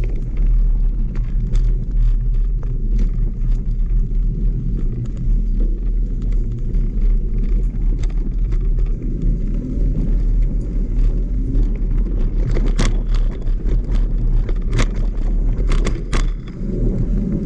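Mountain bike riding down a dirt trail: steady low wind and tyre noise on the camera microphone, with a few sharp knocks from the bike jolting over bumps, about 13, 15 and 16 seconds in.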